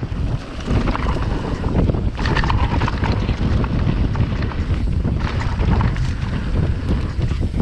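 Wind buffeting the microphone in a steady low rumble, with scattered crackles and scrapes, heaviest about two seconds in and again around five to six seconds.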